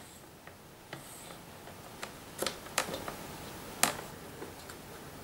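Fiskars paper trimmer cutting cardstock, its sliding cutter head running along the rail, with a few sharp clicks and taps as the card is turned and lined up against the trimmer.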